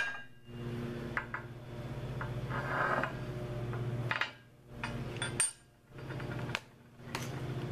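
A few light metallic taps and clinks as a steel center punch and hammer are handled over a steel disc on a steel welding table, the sharpest a ringing clink about five seconds in. A steady low hum runs underneath, broken by a couple of brief gaps of silence.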